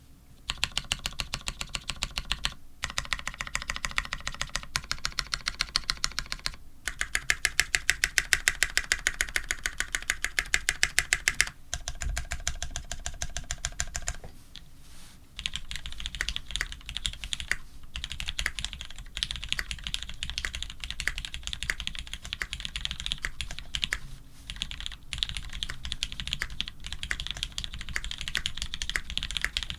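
Mechanical keyboard, a Monstargear XO V3 with lubed Cherry Retooled Black linear switches on an FR4 plate and GMK keycaps, being typed on. For the first 14 seconds or so it is rapid, evenly spaced presses in four separate runs, each with its own pitch; after a short lull about 15 seconds in, ordinary uneven typing follows.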